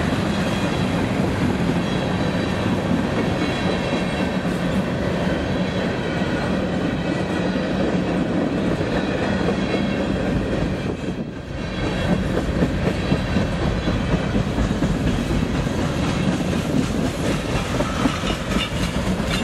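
Freight train rolling past, its hopper, tank and box cars clattering steadily with the clickety-clack of wheels over the rails. The level dips briefly about eleven seconds in.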